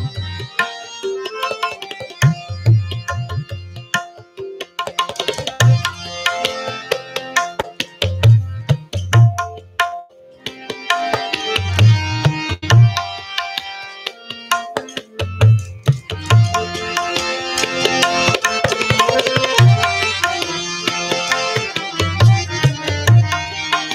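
Tabla and harmonium playing an instrumental interlude between sung lines of a ghazal: a melodic harmonium line over a tabla rhythm, with low bass-drum strokes coming in small clusters every second or two. The playing grows fuller in the last third.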